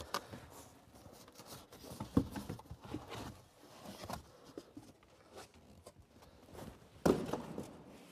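Handling noise as cardboard packaging is pulled off a car seat: scattered rustling, scraping and light knocks, with one louder thump about seven seconds in.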